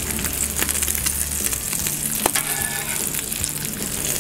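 Bacon, sausage and hash browns sizzling steadily on a Blackstone steel flat-top griddle. A metal spatula scrapes and clicks against the cooktop as the bacon is pushed aside, with one longer scrape a little past halfway.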